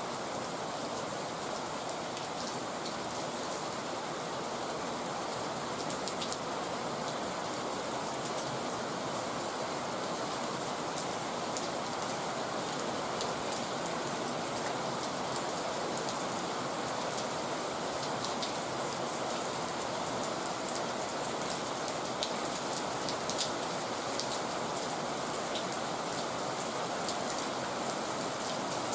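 Heavy rain falling steadily, a dense even hiss with scattered sharper drop ticks.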